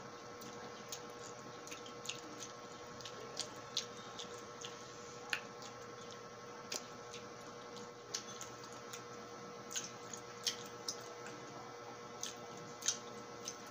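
Close wet mouth sounds of eating lemon: irregular lip smacks, sucking and squishy chewing of the lemon pulp, over a faint steady hum.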